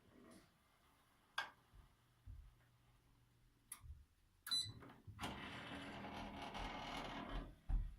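A Corona FH-VX3617BY kerosene fan heater's shutter mechanism opening or closing: a few sharp clicks, then from about five seconds in a steady noisy sound lasting about two seconds. This is the abnormal noise the shutter makes as it moves.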